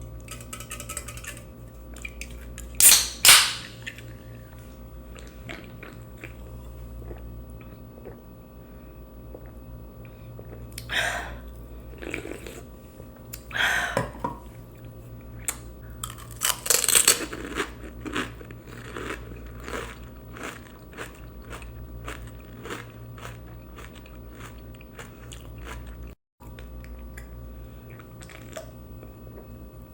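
Close-miked chewing of pani puri: crisp puri shells crunching and wet mouth clicks throughout, with a handful of louder crunchy bursts.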